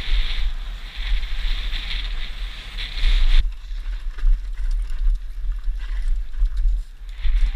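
Wind buffeting the helmet camera's microphone and tyres running over a dusty dirt trail as a downhill mountain bike descends fast, with small rattles and ticks from the bike. The hiss drops off abruptly about three and a half seconds in and builds again near the end.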